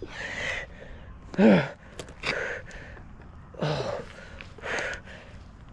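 A man's heavy, gasping breaths and pained groans, about five breaths, the loudest a wavering groan about one and a half seconds in and another low groan near four seconds, from a climber straining through a muscle cramp.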